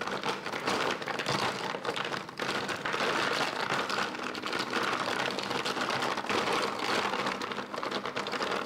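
Dozens of small plastic ink-sample vials being stirred and shuffled by hand in a plastic storage box: a dense, continuous clatter of plastic tubes and caps knocking and sliding against one another.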